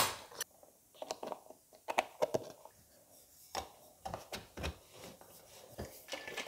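Scattered light clicks and taps of a plastic shaker bottle being handled as its lid is closed, with a busier patch of handling noise near the end as the bottle is shaken.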